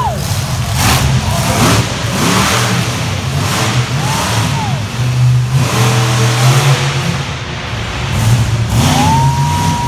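Monster truck engines revving hard in repeated surges over a steady low drone. A high whine rises, holds and falls with the revs three times: at the start, about four seconds in, and near the end.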